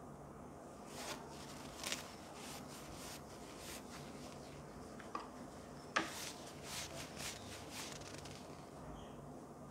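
Fabric sleep eye mask with built-in headphones being handled and unfolded: a run of soft rustling and rubbing of cloth, with a couple of sharp clicks, the loudest about six seconds in.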